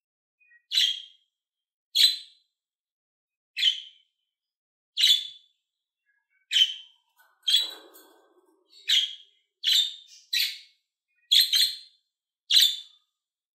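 Budgerigar giving short, sharp chirps, about eleven in all, one every second or so, coming a little closer together in the second half.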